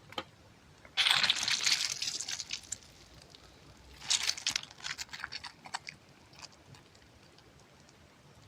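Close-miked squeezing of a soft object, giving two bursts of crackly, crunchy squishing: one about a second in lasting nearly two seconds, the other about four seconds in, trailing off into scattered small crackles.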